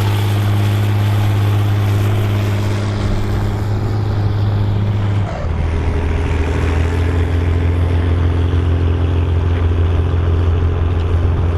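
Volvo BM 814 tractor's diesel engine running steadily while pulling a plough. About five seconds in, its note drops a little lower with a brief dip in loudness, then it runs on steady.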